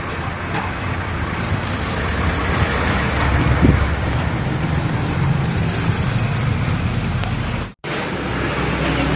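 Street traffic noise: motorcycle and vehicle engines running, with one engine briefly rising in pitch about three and a half seconds in. The sound drops out for an instant near the end.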